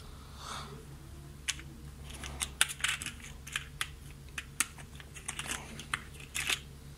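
Irregular run of light plastic clicks and taps: small plastic parts being handled and picked out of a plastic compartment organiser box. The clicks start about a second and a half in, come thickest around the middle and stop shortly before the end.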